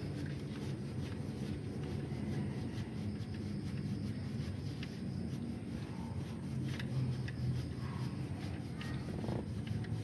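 Faint clicks and rubbing of hand tools and metal parts being worked on, over a steady low hum.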